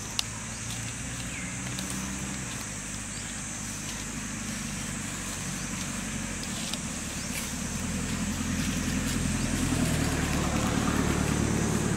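A motor vehicle's engine running steadily, growing louder over the last few seconds, over a steady high-pitched hiss; a single sharp click just after the start.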